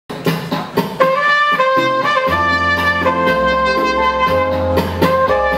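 Trumpet playing a slow, sustained melody into a microphone, with accompanying instruments. A few short percussive strokes open it, and a low accompaniment comes in about two seconds in.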